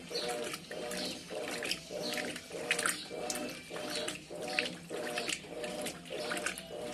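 Brastemp BWT12A 12 kg top-loading washing machine agitating its wash load. The agitator reverses about twice a second, and the motor hums and the water sloshes with each stroke in a steady rhythm.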